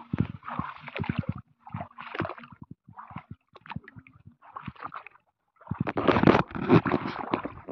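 Shallow water sloshing and splashing as feet wade through it, in uneven bursts with short pauses between steps. The longest and loudest burst comes near the end.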